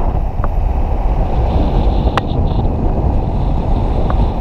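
Steady wind rumble buffeting the microphone over continuous motor noise while travelling, with a couple of faint clicks.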